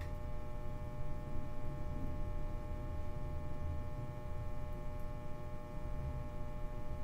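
Bathroom lamp humming steadily once switched on: an even electrical buzz with several steady tones over a low rumble.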